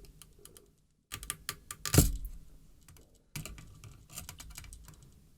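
Metal tweezers clicking and scraping against a through-hole connector's pins and the circuit board as the connector is worked at, a run of small sharp ticks with one louder click about two seconds in. The connector stays put because its pins are still soldered in.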